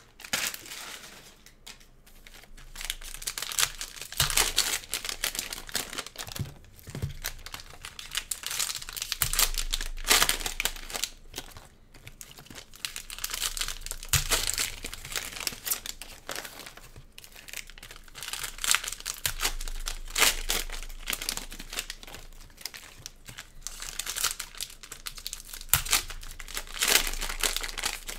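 Plastic trading-card pack wrappers crinkling and tearing as packs are ripped open, in irregular bursts every few seconds, with a few light knocks on the table.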